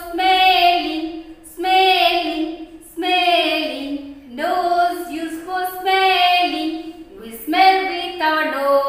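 A woman singing a children's rhyme about the five sense organs and their functions, in short sung phrases of about a second each with brief pauses between.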